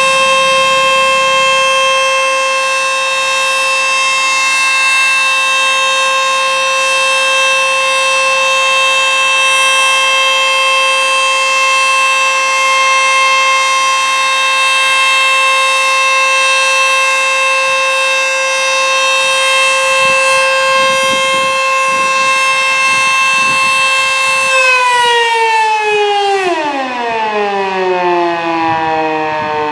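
ACA Screamer S-2 outdoor warning siren sounding a steady, single-pitched wail for its monthly test. About 25 seconds in, the tone starts falling as the siren winds down.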